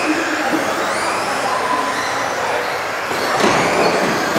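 Several electric RC off-road buggies racing together, their brushless motors whining up and down in pitch as they accelerate and brake, over tyre noise on the carpet. A single knock comes about three and a half seconds in.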